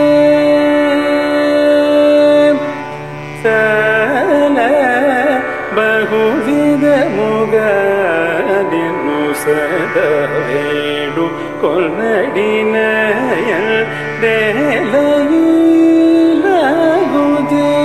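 Carnatic music: a male voice sings melodic phrases full of quick wavering ornaments over a steady drone, with a short pause about three seconds in.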